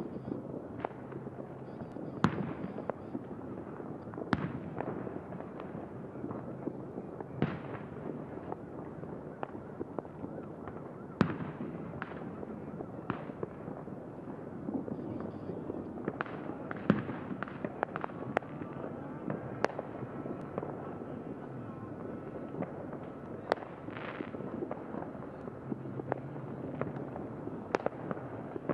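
Fireworks and firecrackers going off: scattered sharp bangs at irregular intervals, a few much louder than the rest, over a steady background din.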